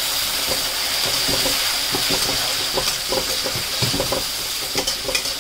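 Freshly added chopped tomatoes and green chillies sizzling in hot oil with fried onions in a kadhai, while a metal slotted spatula stirs them, scraping and clicking against the pan many times.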